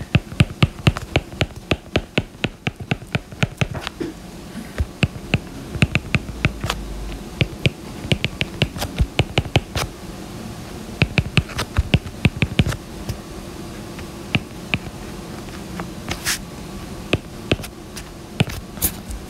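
Stylus tip tapping and clicking on a tablet's glass screen while writing, many quick, irregular taps coming in bursts and thinning out near the end.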